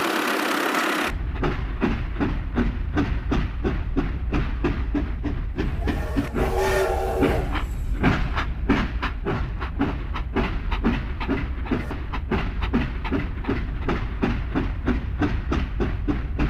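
Train running over rail joints: a steady low rumble with a regular clickety-clack of about three clacks a second, starting about a second in. A short train horn sounds about six seconds in.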